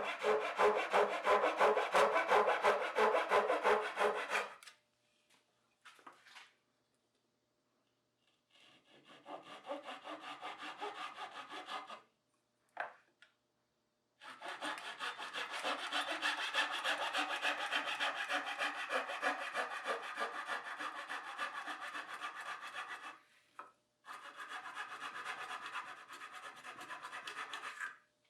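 Dovetail saw cutting through thick Baltic birch plywood by hand, in quick, even back-and-forth strokes. It goes in four spells, with short pauses between them, as the waste is cut away on both sides of the opening.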